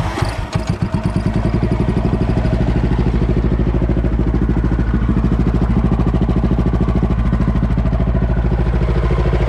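Cub Cadet 122 garden tractor's single-cylinder engine just after starting, firing unevenly for the first second or two and then settling into a steady, fast idle.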